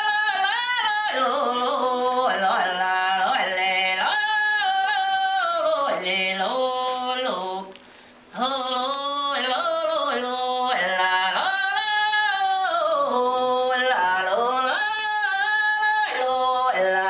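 A solo singing voice holding long notes and gliding between them, with a brief break about eight seconds in.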